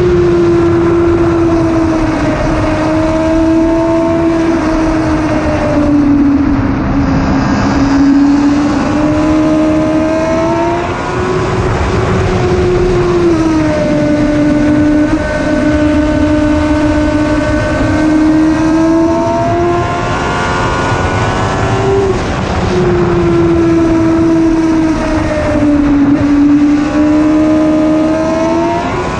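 1000cc sportbike engine at high revs under sustained hard riding on a race track. The pitch holds high and dips and climbs again several times as the rider rolls off and gets back on the throttle through corners.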